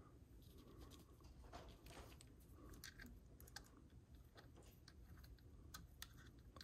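Faint, scattered small clicks and taps of hands and a small hex key working at a Sig P365's adjustable flat trigger, setting its take-up, with a few sharper clicks in the second half.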